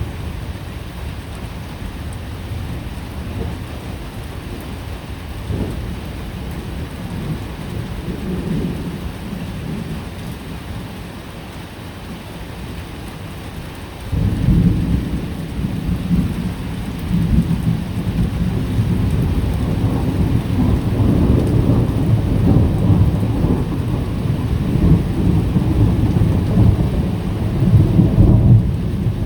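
Thunderstorm: rain falls steadily under a low rumble of thunder. About halfway through the thunder suddenly grows much louder and keeps rolling, heavier toward the end.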